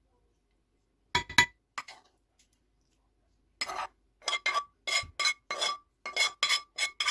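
A metal spoon clinking against a glass baking dish as fried onion is spooned in: two clinks about a second in, then from about halfway a quick run of clinks, about three a second, each ringing briefly.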